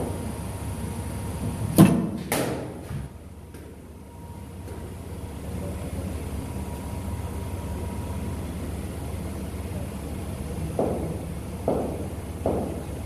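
Cricket bat striking a ball with a sharp crack about two seconds in, followed half a second later by a second knock, then three softer knocks near the end over a steady low background hum.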